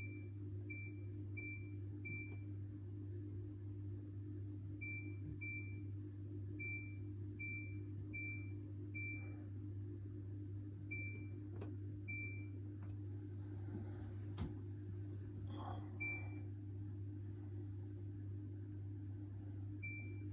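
Hoover H-Wash 600 washing machine's control panel beeping, one short high beep per press as programs and options are selected: about fourteen beeps in irregular clusters over a steady low hum.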